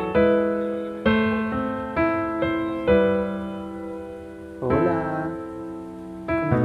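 Background piano music: slow chords struck about once a second and left to ring and fade.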